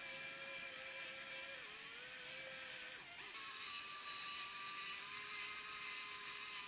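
Small electric motor spinning the belt-driven pulleys of a 3D-printed scale 2JZ model engine, a steady whine that dips briefly about two seconds in and settles at a lower pitch about three seconds in as the speed changes.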